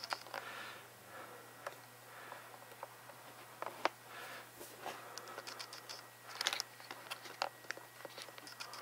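Scattered small clicks, taps and scratches of hands handling the camera as it is repositioned, the sharpest tap a little before the middle and a quick cluster of clicks about two-thirds through.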